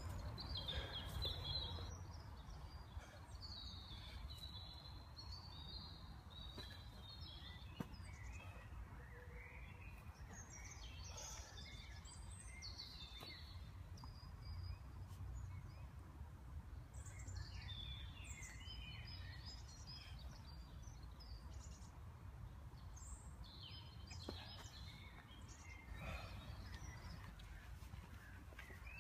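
Small birds chirping and calling on and off, over a steady low background rumble.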